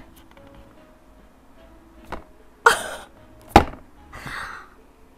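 Handling noises: a few sharp clicks and knocks, the loudest a little past halfway, and two brief rustles, over quiet background music.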